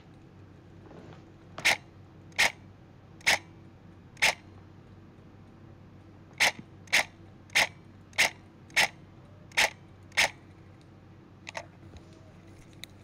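Airsoft electric M4 rifle firing single shots, about eleven sharp cracks half a second to a second apart, with a pause of about two seconds after the fourth. Two faint clicks come near the end.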